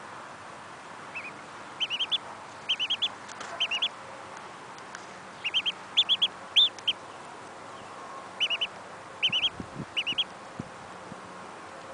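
Mallard duckling peeping: short, high calls in quick groups of two to four, repeated every second or so with brief pauses.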